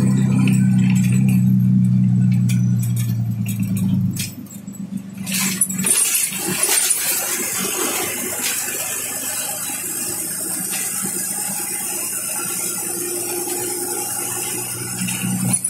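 Cabin sound of a moving bus. The engine drone is steady for about four seconds, then falls away. Road and wind rumble follows, with a few rattles and clicks around five to seven seconds in, and the engine drone comes back near the end.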